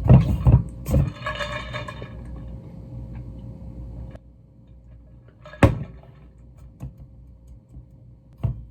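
Objects being handled: a cluster of knocks near the start with a brief rattle, then single sharp clicks about halfway through and near the end, over a faint steady hum.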